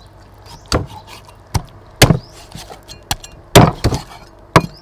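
A cleaver chopping through raw chicken onto a thick wooden chopping block: about seven sharp, irregularly spaced chops.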